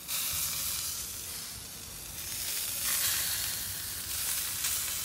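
Venison chops sizzling on a grill: a steady hiss that swells briefly about three seconds in.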